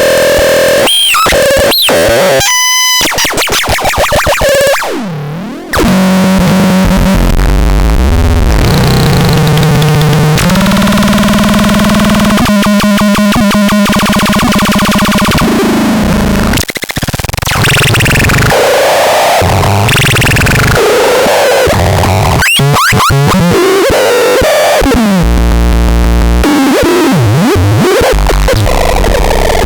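Harsh electronic synthesizer noise from the SELTER: shifting drones, sweeping pitches and buzzing, pulsing tones. It drops away briefly about five seconds in and again around the middle.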